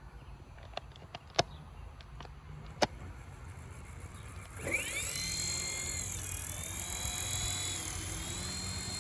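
A few sharp clicks, then about four and a half seconds in the DEERC DE51 mini RC helicopter's electric motor and rotors spin up with a rising whine and run on steadily, the pitch wavering a little as the throttle changes.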